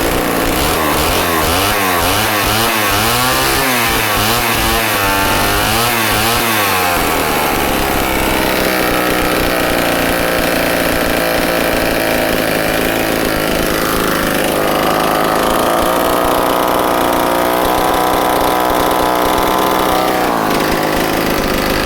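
Loud Homelite XL-12 two-stroke chainsaw engine running, revved up and down in quick repeated blips for the first six or seven seconds, then held steady at high revs.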